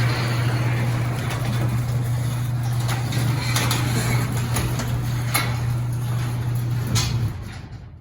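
Craftsman half-horsepower chain-drive garage door opener running as it closes the door: a steady motor hum with chain and door noise and a few clicks, cutting off about seven seconds in as the door finishes closing.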